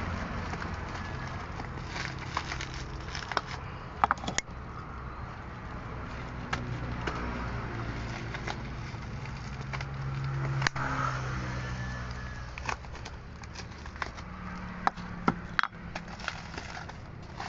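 Scattered sharp clicks and knocks of parts and tools being handled during a washing machine gear case repair, over a steady low hum. A few come close together about four seconds in and again near fifteen seconds in.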